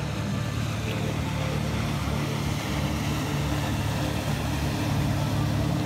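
Motorboat engine running steadily as the boat tows a water skier, its drone growing a little louder toward the end as it comes closer.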